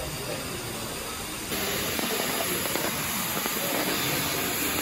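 Steam locomotive letting off steam: a steady hiss that gets louder about a second and a half in, then holds.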